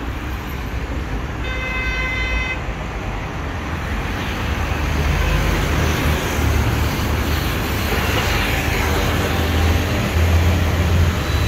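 Street traffic: motor vehicles running and passing, with a vehicle horn sounding once for about a second near the start. The traffic noise grows louder about halfway through.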